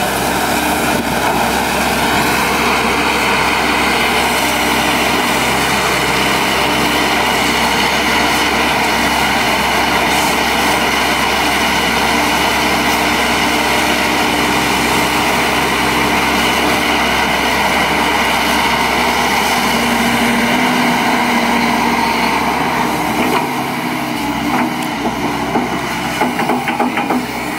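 Volvo EC210 crawler excavator's diesel engine running steadily under working load, with high steady tones held over it. In the last few seconds, as the full bucket swings in, the sound turns uneven with some clattering.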